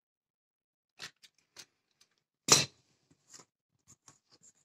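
Utility knife cutting through two layers of linoleum along a steel ruler: a few short clicks and scrapes, then one loud, sharp scrape about two and a half seconds in, then light taps as the ruler and linoleum are handled.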